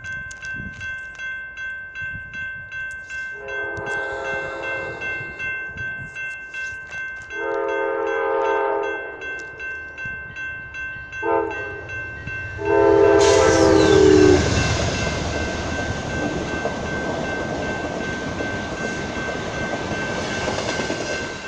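Train horn on an approaching Amtrak Cascades Talgo train sounding the grade-crossing pattern: two long blasts, a short one and a final long, loudest blast. The train then passes close by, with a loud rush of wheels on rail that starts during the last blast and carries on to the end.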